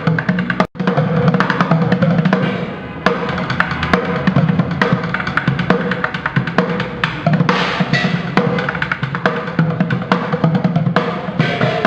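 Street drummer playing a fast, busy rhythm on drums, with dense rapid strikes and bass-drum hits; the sound drops out for a split second about a second in.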